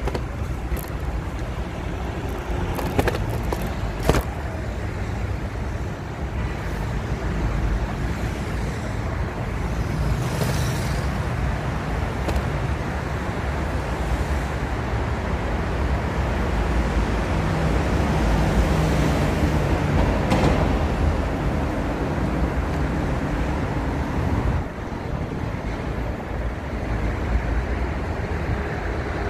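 Road traffic noise: cars and trucks going by as a steady low rumble, with a vehicle swelling past about ten seconds in and another around twenty seconds in. Two sharp clicks about three and four seconds in.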